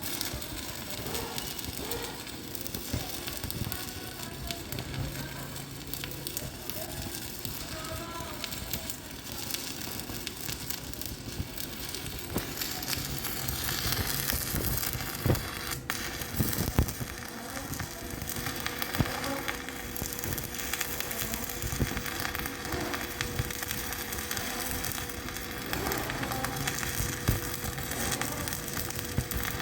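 Stick-welding arc crackling and sizzling steadily as a 3.2 mm E6013 rod burns at about 70 amps, with a few sharper pops about halfway through.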